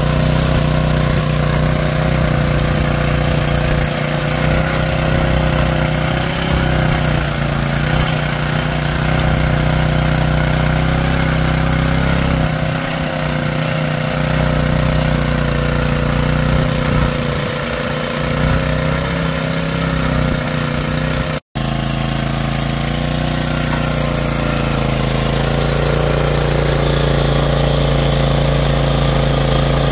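Pubert Nano mini tiller's small petrol engine running steadily under load while its tines churn dry, stony soil. The sound drops out for an instant about two-thirds of the way through.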